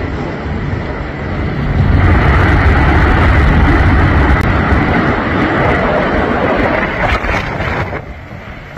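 Tornado winds blowing hard with heavy wind rumble on the microphone, louder from about two seconds in and easing near the end.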